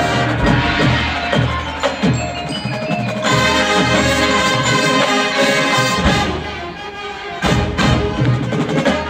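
Marching band playing a field show, with sustained ensemble chords and the front ensemble's mallet percussion (marimba and bells) striking notes. Several sharp percussion hits come in the last few seconds.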